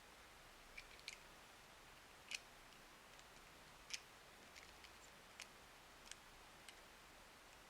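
Faint, irregular clicks and taps of small hard plastic toy pieces being handled, about a dozen over several seconds, the two loudest a little over two seconds in and near the middle.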